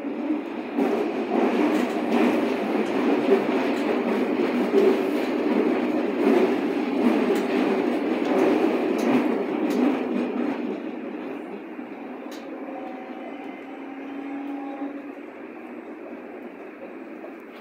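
Berlin U-Bahn small-profile train (class HK) heard from inside the carriage while running, with wheel-and-rail rumble and clicks over the rail joints. The noise falls away after about ten seconds, and a brief steady whine comes in near the end.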